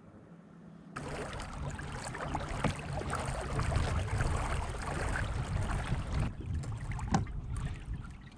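Noise of a kayak out on open water: wind and water on the microphone, starting abruptly about a second in, with an uneven low rumble and small splashy clicks.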